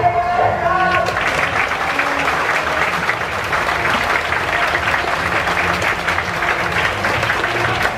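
Large crowd of baseball fans in a stadium applauding steadily, a dense patter of many hands. A brief pitched crowd chant cuts off about a second in, as the clapping takes over.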